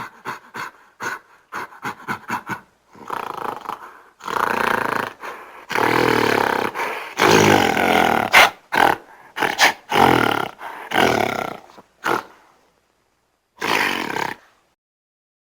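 Gorilla calls: a quick run of short sharp sounds, then a string of loud roars and growls, with one last shorter roar after a pause near the end.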